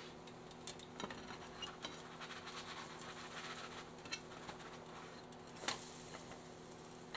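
Faint sizzle of butter frying under a pancake in a nonstick skillet, with a few soft taps and scrapes of a spatula against the pan as the pancake is lifted and flipped.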